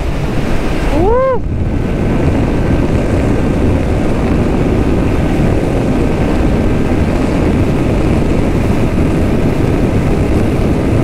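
Yamaha R15 V3's single-cylinder 155 cc engine held at high revs at full speed, largely buried under a steady rush of wind over the microphone.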